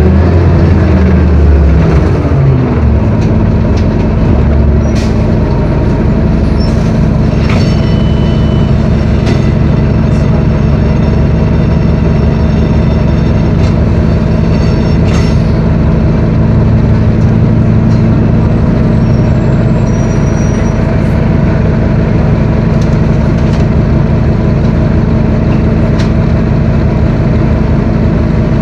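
Detroit Diesel Series 50 inline four-cylinder diesel of a New Flyer D40LF bus, heard from inside the cabin, winding down in pitch over the first few seconds as the bus slows to a stop. It then idles steadily, with a few brief clicks.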